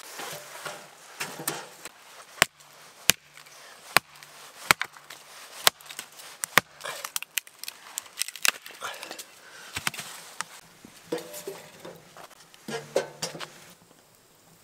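Firewood being chopped and handled: a string of sharp wooden knocks and clacks, irregularly spaced about a second apart.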